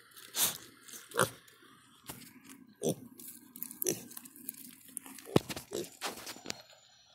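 Kunekune pig snuffling, grunting and chewing right at the microphone, in short separate sounds about a second apart.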